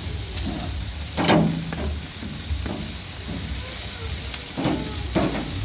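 Steady sizzling hiss of cooking, with a sharp knock about a second in and two more near the end.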